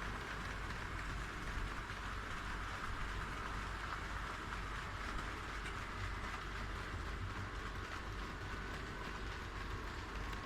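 HO scale model train running on the track: a steady rolling noise of wheels on rail and the locomotive motor.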